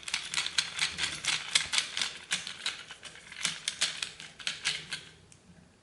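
A quick, uneven run of small sharp clicks and ticks from working a wire around a receptacle's terminal screw, stopping about five seconds in.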